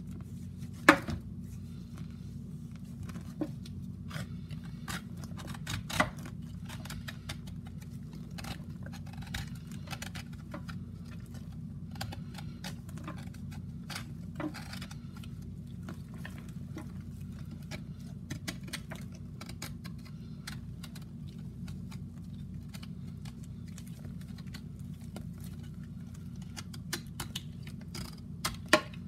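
Wet Comet cleanser brick being crumbled by gloved hands in Pine-Sol in a stainless steel sink: scattered crunching, crackling and squelching, with a few sharper knocks about a second in, around six seconds and near the end. A steady low hum runs underneath.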